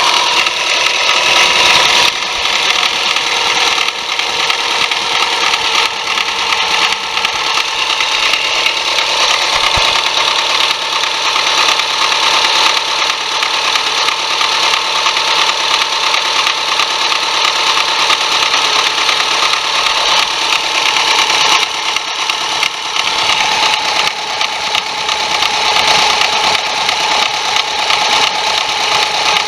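Subaru Legacy BP5's flat-four engine running with a steady high whine and hiss: the abnormal noise that appeared after its timing belt was replaced.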